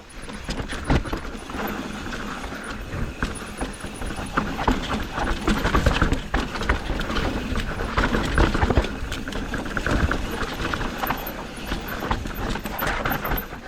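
Mountain bike riding down a rough dirt and rock trail: tyres crunching and bumping over rocks, with the chain and frame rattling in quick irregular clatters over a steady low rumble.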